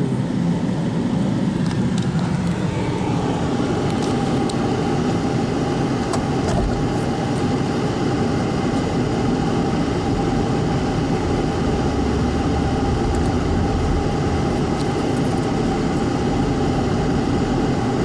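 Car engine running with road noise, heard from inside the cabin as the car drives, at a steady level.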